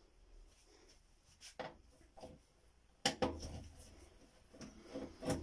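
A few light clicks and knocks, the loudest about three seconds in, from hands handling the plastic back of a flat-screen TV and its metal wall-mount bracket.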